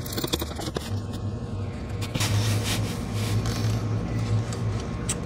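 Hand tools and parts being worked in a car's engine bay: a few scattered clicks and scrapes over a steady low hum.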